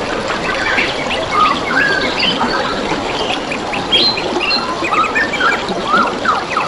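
Several birds chirping and whistling in quick, overlapping calls over the steady trickle of flowing water.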